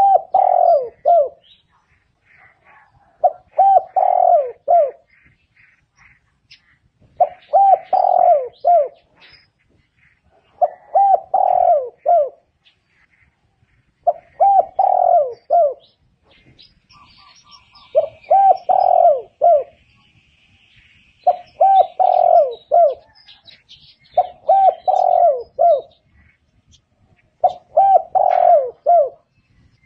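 Spotted dove cooing its short phrase of several low notes over and over, about every three to four seconds, with faint chirps of other small birds in the background.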